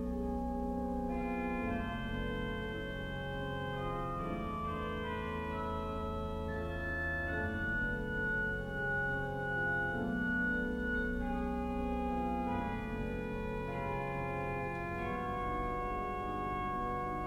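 Pipe organ playing a slow pastorale: sustained chords over held low pedal notes, changing every second or two, with a high melody note held for a few seconds in the middle.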